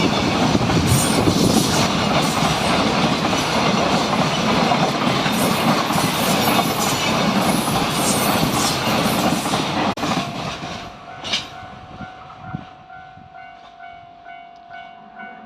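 Freight train passing close by: a loud, steady rumble of wagons with wheels clacking over the rail joints, cutting off about ten seconds in as the last wagon goes by and then fading away. In the last few seconds the level crossing's electronic warning bell is left ringing in an even, repeating pattern.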